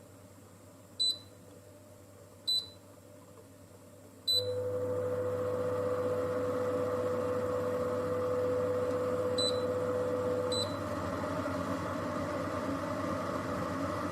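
Philips HU2716/10 humidifier's control panel beeping as it is operated: after three beeps its fan starts, running steadily with a hum. Two more beeps come about ten seconds in, and at the second the hum drops away and the fan runs a little quieter.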